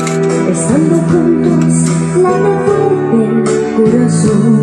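Music playing: a song with guitar and a singing voice.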